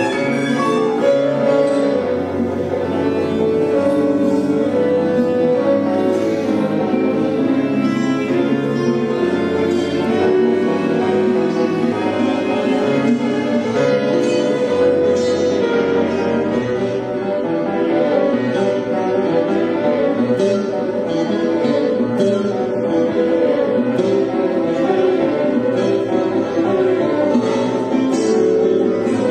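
Violin, classical guitar and piano playing an instrumental piece together, with many short notes over sustained low bass notes.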